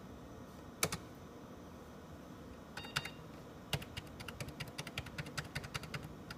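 Computer keyboard keys being pressed: a couple of single presses in the first three seconds, then rapid repeated tapping from about four seconds in, stepping through the date value in a BIOS setup screen.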